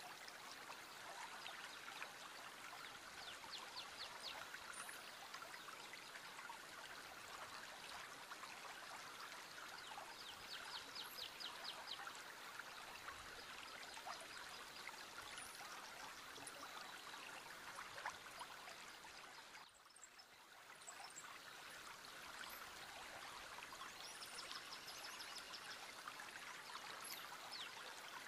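Small river flowing, a faint steady rush of water with little trickles and splashes; it dips briefly about twenty seconds in.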